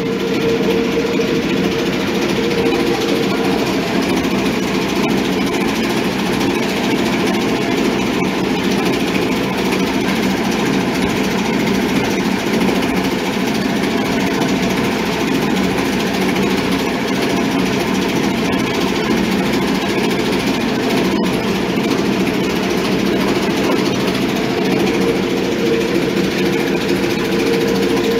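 Motor-driven molino grinding mill running steadily while chiles and other mole ingredients are ground into paste.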